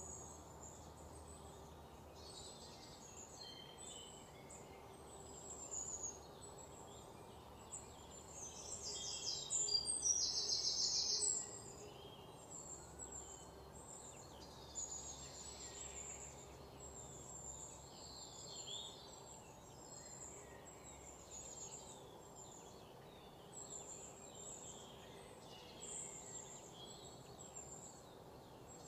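Birds chirping in short, repeated high calls over a faint steady hum, with a louder rapid trill from about nine to eleven seconds in.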